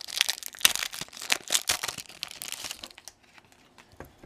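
Gold foil wrapper of an O-Pee-Chee Premier baseball card pack crinkling and tearing as it is pulled open by hand: a dense run of sharp crackles that dies down after about three seconds, leaving a few faint clicks as the cards are handled.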